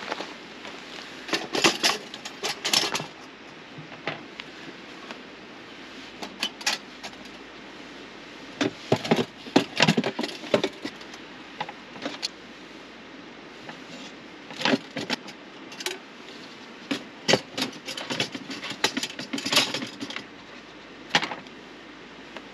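Irregular clinks and clatters of hard objects being handled, in clusters of quick knocks, over a steady background hiss.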